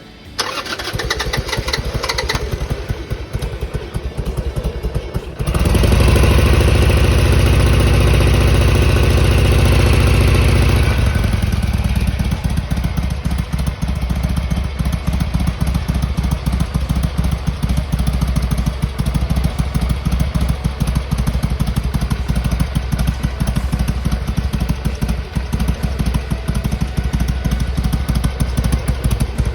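Harley-Davidson Sportster XL883R's carbureted 883 cc V-twin cold-starting on the choke: the starter cranks for about five seconds, then the engine catches. It runs at a fast choke idle, and about eleven seconds in it drops to a slower, uneven idle.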